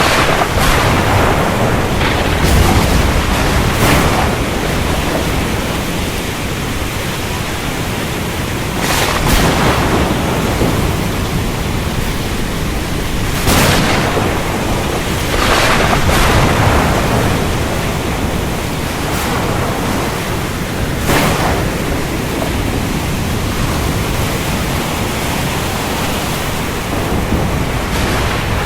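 Steady rain with thunder: a low rumble underneath and several sharp thunder cracks at irregular intervals.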